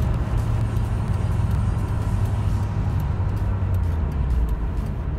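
Engine and road noise heard from inside the cabin of a moving Nissan Skyline: a steady low drone whose pitch drops about four seconds in.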